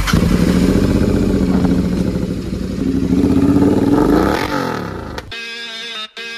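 Royal Enfield Continental GT 650's parallel-twin engine through an aftermarket SS Motocorp exhaust, running loud with the revs rising and falling, a quick rev up and back down about four seconds in. It cuts off suddenly about five seconds in, replaced by music.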